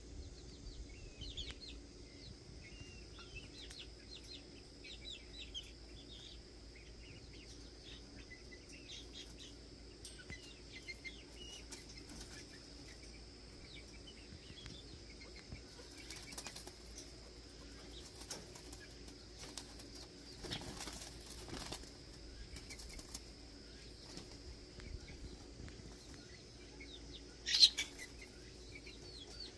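Young Serama chickens scuffling in a pecking-order fight, with brief wing flapping and scattered short high chirps. Near the end comes one sharp squawk, the loudest sound in the stretch.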